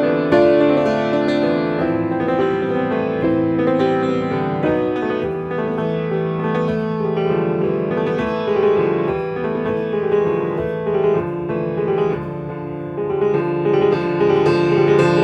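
Solo piano playing continuously, with one brief quieter stretch about three-quarters of the way through.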